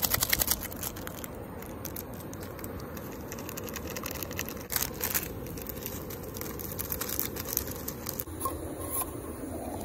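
Plastic seasoning sachet for cup noodles crinkling in the hands, torn open about halfway through, then its dry flakes shaken into the paper cup, with a steady low rushing underneath.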